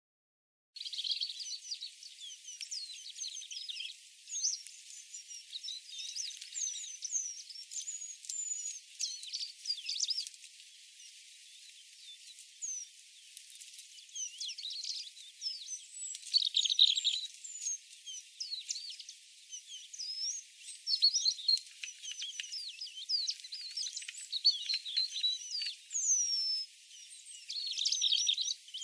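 A chorus of small birds singing and calling, with many overlapping high chirps, short whistles and rising and falling notes, starting about a second in.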